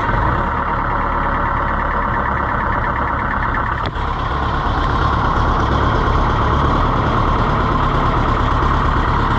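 Tractor engine running steadily. About four seconds in there is a brief break, after which it runs slightly louder.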